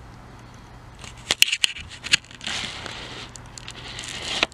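Handling noise: a few sharp clicks and taps a second or two in, then a rustling scrape for about two seconds, ending in a click.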